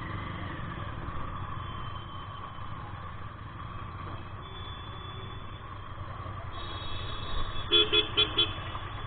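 Steady engine and road noise of a Royal Enfield Interceptor 650 being ridden, with a vehicle horn beeping four quick times near the end.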